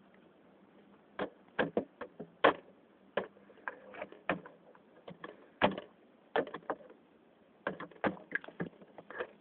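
Plastic toy horse's hooves tapping and clacking on the hard plastic floor of a toy horse trailer as it is walked in by hand: an irregular run of sharp clicks and knocks starting about a second in.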